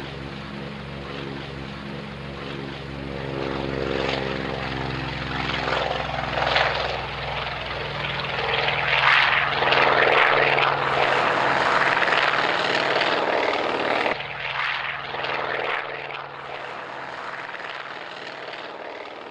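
Propeller aircraft engines running: a steady, droning hum that swells into a loud rushing noise through the middle, then drops off suddenly about two-thirds of the way through and carries on quieter.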